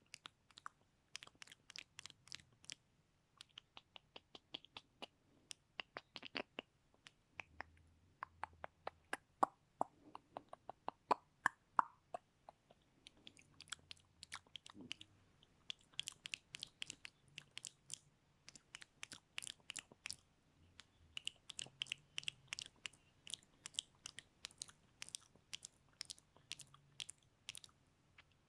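ASMR mouth sounds: many quick, wet tongue and lip clicks and smacks in dense runs, with a short lull about halfway through.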